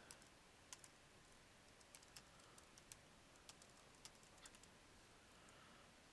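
Faint typing on a computer keyboard: scattered, irregular keystroke clicks over a low background hiss.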